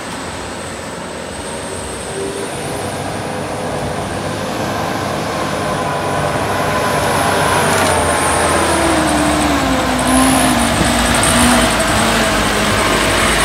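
Heavy truck's diesel engine running under load, growing steadily louder as it approaches, its pitch wavering up and down in the second half.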